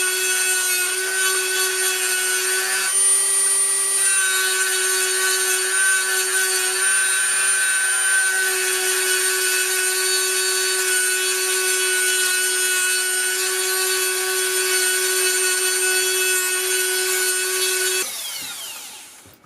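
Electric grinder running steadily, rounding off the edges of a forged 1/4 inch steel bracelet. Near the end it is switched off and winds down with a falling pitch.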